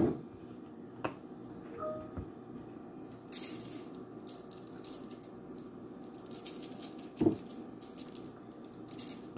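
Pepper being put onto the potatoes: a run of short, crisp, scratchy strokes from about three seconds in, with a single knock a little after seven seconds.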